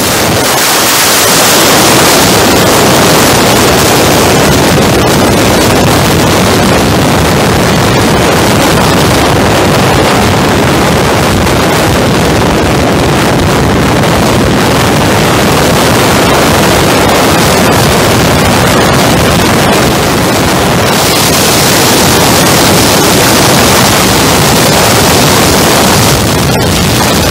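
Heavy wind rushing over the microphone of a camera moving at highway speed, a loud, steady rush that drowns out any other sound. The hiss turns brighter for a few seconds near the end.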